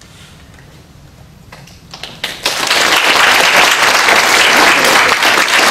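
Audience applauding: a few scattered claps, then full applause from about two and a half seconds in.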